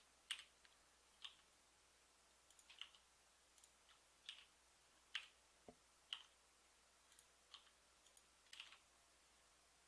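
Faint, irregular clicking of a computer mouse and keyboard, about a dozen separate clicks, as 3D modelling software is being worked.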